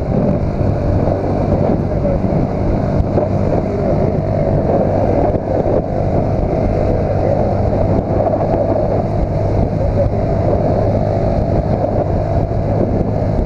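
Yamaha Factor 150's single-cylinder four-stroke engine running steadily at cruising speed, heard from the rider's position, with road and wind noise.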